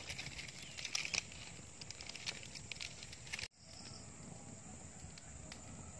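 Open fire of dry palm fronds burning under a cooking pot, crackling with many small snaps. The crackles are densest in the first half, stop for an instant about three and a half seconds in, then go on more sparsely.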